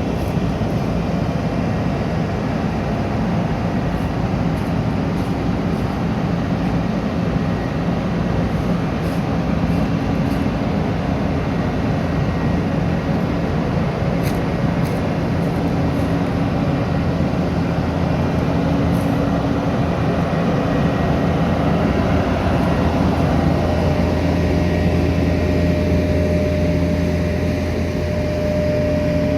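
Heavy engines of road-repair machinery running steadily alongside traffic, giving a continuous low engine drone. About three-quarters of the way through, a steady higher tone joins in.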